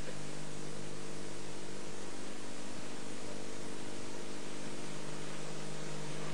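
Steady electrical mains hum with a constant hiss: the noise floor of an old recording, with no voice.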